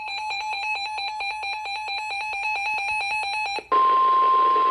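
Emergency Alert System broadcast signal: a rapid electronic pulsing of several tones, about eight pulses a second, which is the alert's digital header data burst. About three and a half seconds in it switches abruptly to a single loud, steady high tone, the National Weather Service warning alarm tone announcing a severe thunderstorm warning.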